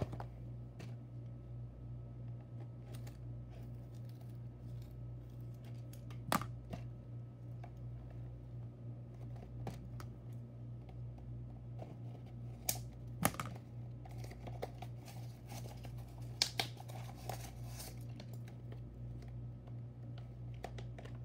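Faint unboxing sounds: scattered clicks and taps of a toy train's cardboard box and plastic packaging being handled and opened, with a stretch of crinkling about 15 seconds in, over a steady low hum.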